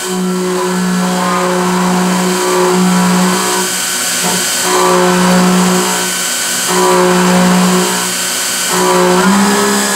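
Instrumental background music with long held notes that change pitch every second or two.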